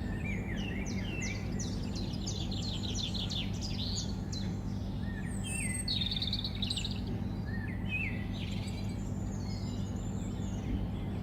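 Small birds chirping and twittering: a rapid series of short, high, sweeping notes from several birds, with a steady low hum underneath.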